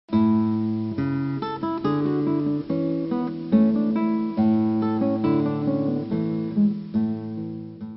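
Background music on acoustic guitar, chords changing about once a second, fading out near the end.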